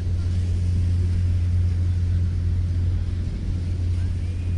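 A boat engine running with a steady low drone, over a faint wash of background noise; a faint short high-pitched glide comes near the end.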